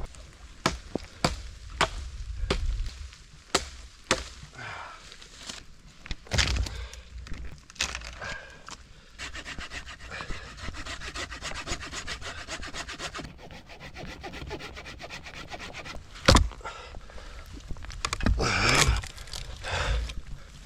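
Firewood being gathered and handled: a string of sharp cracks and knocks of sticks and branches, a stretch of fast, even rasping of wood rubbing in the middle, and one loud knock about two-thirds through.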